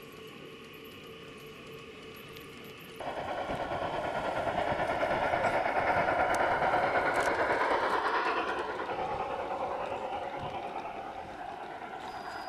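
Garden-scale model railway train running on its track. A fainter steady running sound for about three seconds jumps up suddenly to a louder rolling clatter of wheels on rails. It swells as a model steam locomotive with freight wagons passes close by, then fades as the train moves away.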